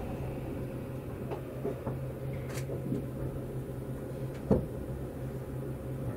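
Inside a Tobu 200 series limited-express car rolling slowly: a steady low hum with a few scattered clunks and knocks, the loudest about four and a half seconds in.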